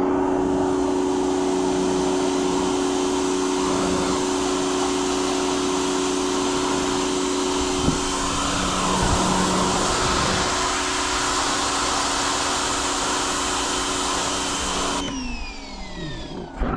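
4,000 psi electric pressure washer running, its motor giving a steady whine under the hiss of the water spray. About fifteen seconds in the spray stops and the motor winds down with falling pitch.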